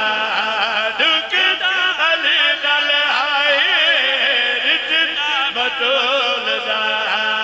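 Male voice singing a devotional verse as a melodic chant over a loudspeaker system, with long wavering notes.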